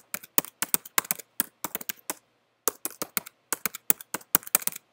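Computer keyboard being typed on: quick, irregular key clicks, with a brief pause about halfway through, as a passphrase is typed in.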